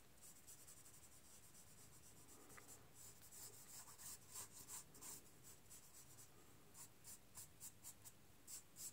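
Faint, quick strokes of a foam sponge applicator rubbing pan pastel onto paper, coming about two to three a second after the first few seconds.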